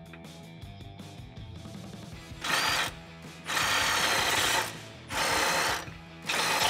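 Cordless impact gun running in four short bursts, spinning out a rear body mount bolt as it is pried downward, over quiet background music.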